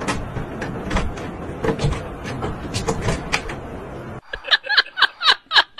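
A cat pulling and hanging on a wooden wardrobe door's knob, the knob and door clicking and knocking over a steady rustling noise. About four seconds in this stops abruptly and gives way to a quick run of short, high voice sounds.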